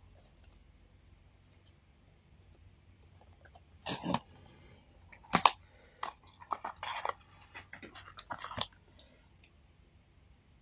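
A small cardboard blind box being opened by hand: a loud scraping tear about four seconds in, a sharp crack about a second later, then a run of short crackles as the flaps and packaging inside are handled.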